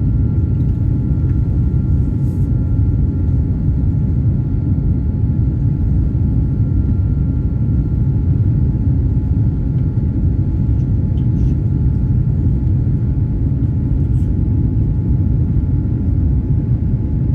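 Boeing 787-9 jet engines running on departure: a steady deep rumble with two steady high tones above it.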